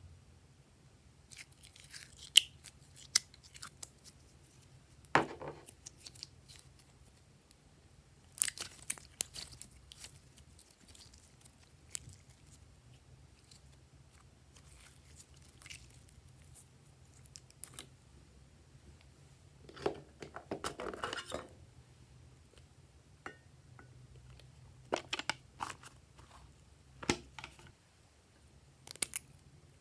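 Hands squishing, stretching and mixing slime, making scattered sticky crackles, pops and squelches with short pauses between, and a longer run of crackling about two-thirds of the way through.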